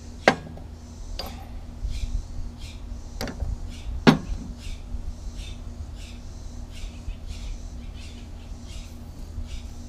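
Metal mower-deck spindle parts (bearings, spacer and housing) clinking as they are handled: four sharp metallic clinks in the first half, the loudest about four seconds in.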